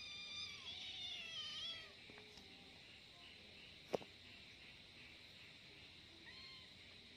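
A kitten's drawn-out, wavering angry cry, lasting about two seconds at the start, then a single sharp click about four seconds in and a brief faint mew near the end.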